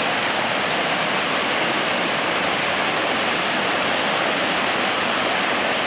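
Water pouring over a concrete weir wall and crashing into the pool below: a steady, unbroken rush.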